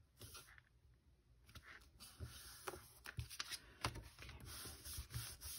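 Card stock being handled and slid across a cutting mat: faint paper rustling with light taps and clicks, growing busier about a second and a half in.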